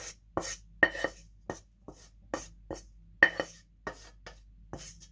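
Wooden spatula scraping and knocking against a nonstick frying pan as cooked greens are scraped out into a bowl: about a dozen quick strokes, two or three a second, stopping just before the end.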